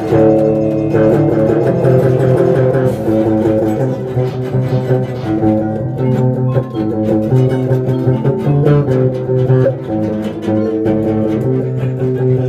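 Instrumental background music: a melody of plucked string notes over a lower bass line.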